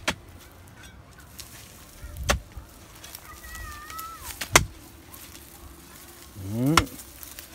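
Hoe chopping into stony soil: four hard strikes about two seconds apart.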